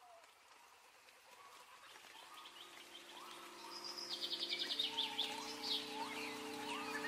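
A lo-fi music track fading in, opening with recorded birdsong: chirps, short rising calls and a fast trill. Soft sustained chords come in about two and a half seconds in and change chord near five seconds. The whole gradually grows louder.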